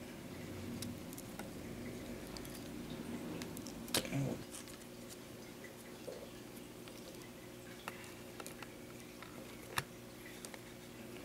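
Faint handling sounds of fingers twisting thin motor wires together over a small drone's circuit board: scattered small clicks and taps, the loudest about four seconds in and another near ten seconds, over a steady low hum.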